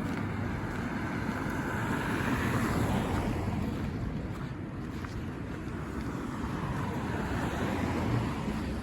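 Tyre hiss from vehicles passing on a wet, slushy road, swelling and fading twice.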